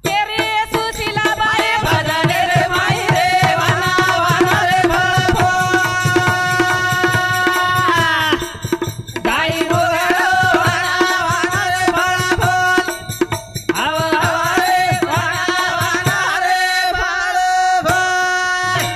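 Banjara devotional bhajan: a woman singing over a barrel drum (dholak) and small hand cymbals keeping a steady beat. The drum drops out briefly near the end.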